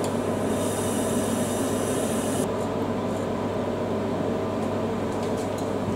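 Steady low hum with a faint hiss in a kitchen, and a faint high whine that cuts off about two and a half seconds in.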